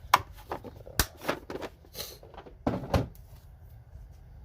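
Sockets and their hard plastic molded case being handled: a string of sharp clicks and knocks with a short scrape in between, the loudest pair about three seconds in.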